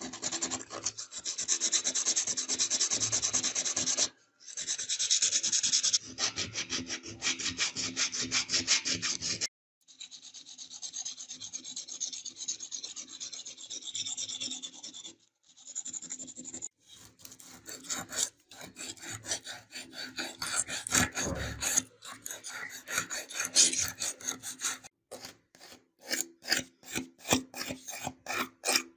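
Abrasive rubbing quickly back and forth over the bare metal body of a die-cast toy car, with two brief pauses. Later the strokes slow into distinct scrapes, about three a second, as a sanding stick is worked along the body.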